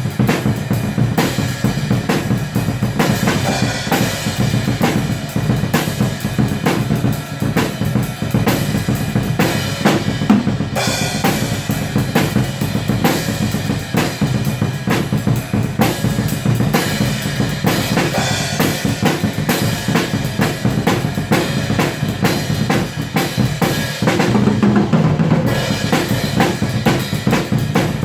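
Atmospheric black metal music with fast, dense drum-kit playing: bass drum and snare struck in quick succession over a loud, unbroken wall of sound.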